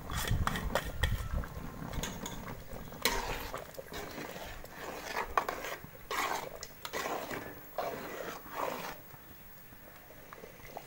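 A metal spoon stirring boiling milk-and-jaggery payasam in a steel pot, clinking and scraping against the pot at irregular moments, with the liquid bubbling. The stirring dies down near the end.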